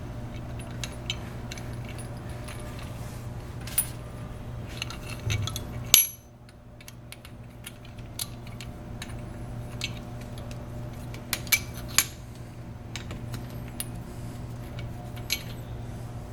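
Scattered light metallic clinks and taps as steel bolts, lock washers and spacers are handled and set against a metal valve tool, over a steady low hum. The sharpest clicks come about six seconds in and twice close together near twelve seconds, and the hum drops off just after the first of them.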